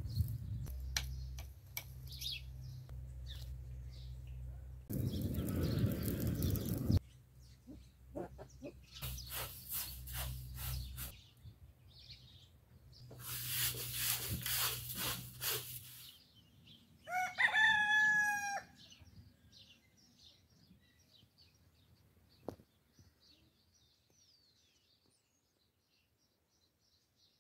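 A string of short sounds: knocks, clicks and bursts of noise, then a domestic rooster crows once, about 17 seconds in, the loudest sound, followed by faint bird chirps.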